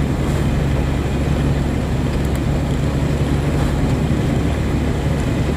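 Truck's diesel engine running steadily while driving, heard from inside the cab as a constant low drone with road noise.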